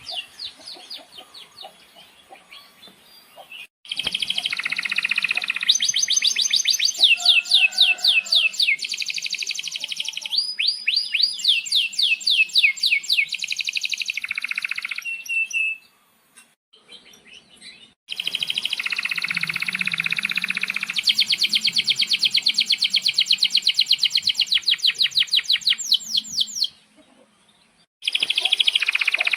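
Male domestic canary singing: long rolled trills of rapid, evenly repeated chirps, the song breaking off and resuming twice.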